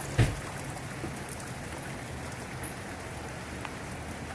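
Steady rain falling, an even hiss, with one sharp knock just after the start.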